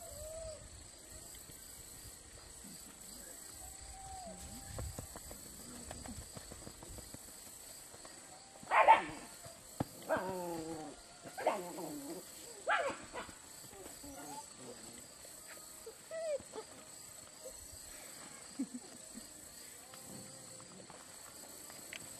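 German Shepherd puppy barking in play while lunging for a tug toy: a run of short barks near the middle, the first the loudest, and one more a few seconds later.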